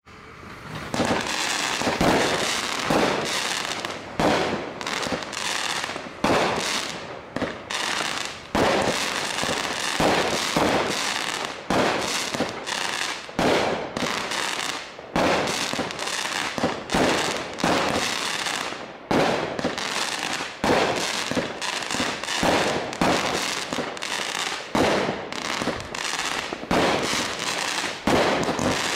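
Fox Fireworks Silk Willow 25-shot consumer fireworks cake firing: a fast string of shots and aerial bursts, more than one a second, with no pauses between them.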